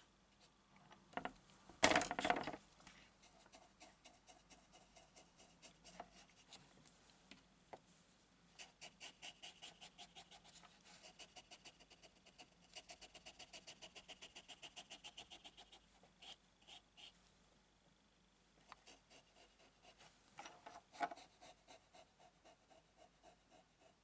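Faint scratchy strokes of a drawing tool on textured watercolour paper. Between about 8 and 16 seconds in, the strokes come as a fast, even back-and-forth of several a second, as in hatching or scrubbing in tone. A louder rub comes about two seconds in and another a few seconds before the end.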